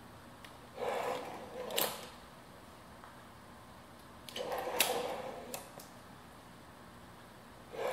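Heavy-duty steel ball-bearing full-extension drawer slide run through two strokes. It is pushed closed about a second in, its ball bearings rolling and ending in a sharp click. A few seconds later it is pulled back out, rolling again with sharp clicks as it runs to full extension.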